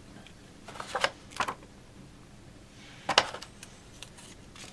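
Hands handling paper cards and cardboard packaging: a few short rustles and taps, twice around one second in and once more about three seconds in.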